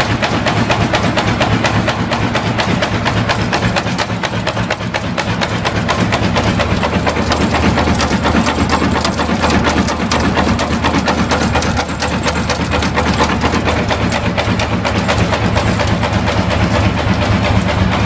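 Nail-making machine running: a rapid, steady mechanical clatter over a constant motor hum.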